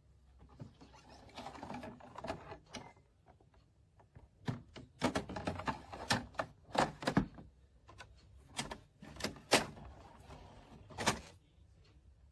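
Plastic clicks and knocks from a two-tier clear plastic slide-out organizer being handled: a soft scraping first, then a run of sharp clacks as drawers and parts are moved, the loudest about two-thirds of the way through.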